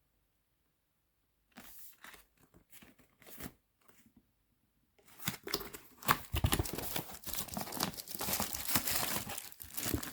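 Packaging being handled and torn open: a few faint rustles, then from about five seconds in a dense, continuous crinkling and tearing.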